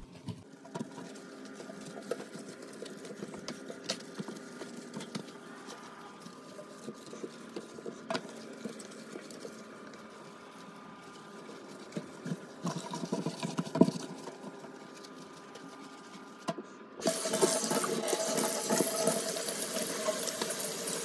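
Microfiber cloth wiping and scrubbing a stainless steel sink, with a few soft knocks. About 17 seconds in, the kitchen faucet comes on and water runs steadily into the sink, much louder than the wiping.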